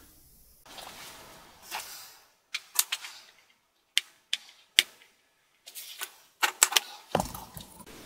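Tip of a small flathead screwdriver picking and scraping at a sticker on a laptop's bottom case: a run of sharp, irregular clicks and short scratches, with a heavier thump about seven seconds in.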